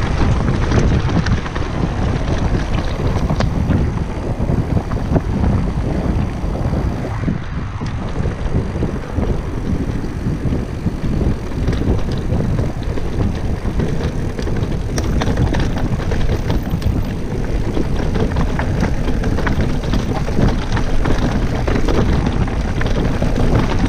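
Wind buffeting the microphone while mountain bike tyres roll over a loose gravel trail, with frequent small clicks and rattles from the bike jolting over stones.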